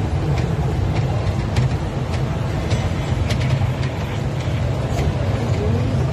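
Small mall amusement-ride train running, heard from inside a carriage: a steady low rumble from the ride with a few light clicks over it.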